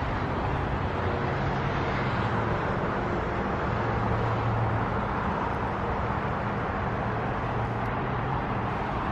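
Steady traffic noise from a highway below: a continuous rush of passing cars with a low engine hum that swells briefly about four seconds in.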